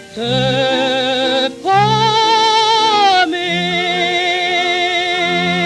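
Old-time French chanson: a woman's voice holds long notes with a wide vibrato over an orchestral accompaniment with regular low bass notes, on the song's closing phrase.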